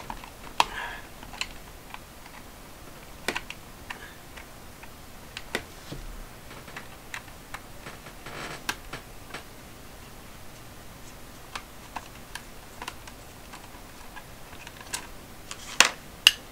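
Scattered light clicks and taps of fingers handling and working at a plastic graphing calculator's case, with two sharper clicks close together near the end.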